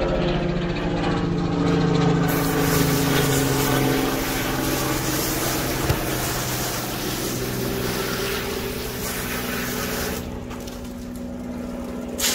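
Hose spray nozzle washing down a plywood table, a hiss of water spray from about two seconds in until about ten seconds in, with a short burst again at the end. A motor hums steadily under it the whole time.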